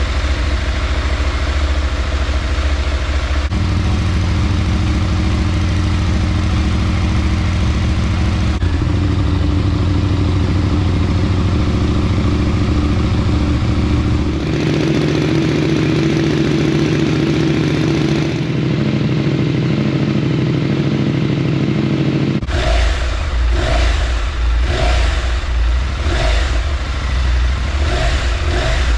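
Husqvarna Norden 901's parallel-twin engine running through several different exhaust setups, heard in a series of spliced clips that each sound a little different. From a few seconds before the end, the throttle is blipped in quick revs about once a second.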